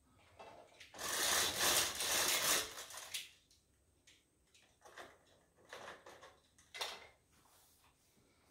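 Bead chain of a zebra roller blind pulled through its clutch as the blind is lowered: a rapid clicking rattle lasting about two seconds, starting about a second in. A few brief, softer clicks or rubs follow later.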